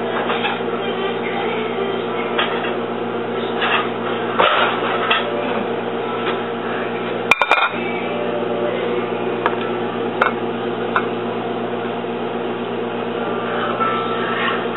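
Steady electric hum of a running kitchen appliance, with a few light clicks and knocks; the hum cuts off near the end.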